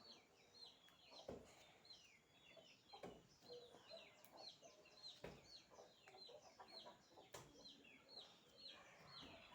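Faint, rapidly repeated short high chirps of a bird, two or three a second, with a few soft clicks among them.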